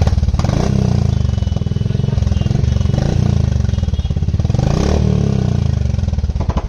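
Royal Enfield Hunter 350's single-cylinder engine running through a newly fitted aftermarket exhaust, revved up and down a few times. The exhaust note is a little heavier, bass-heavy, as the aftermarket pipe is meant to make it.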